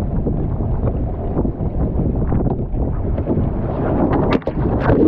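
Gusting wind buffeting the microphone over water rushing past the hull of a small Moth sailing dinghy, as a strong gust hits the boat. Sharp knocks and splashes come about four seconds in as the boat heels hard over.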